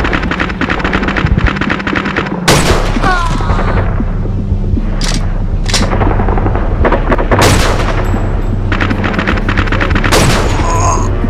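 Gunfire in a film battle scene: rapid bursts of automatic fire alternating with several single loud rifle shots that ring out after each crack, over a low music score.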